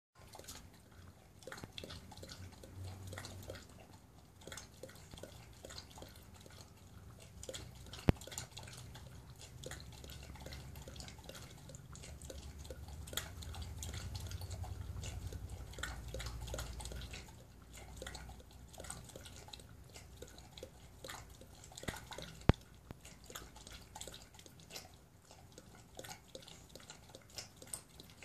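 A dog lapping water from a stainless-steel saucepan: a steady run of quick wet laps. Twice, about a third and three-quarters of the way through, there is a sharp clink, and a low rumble swells for a few seconds in the middle.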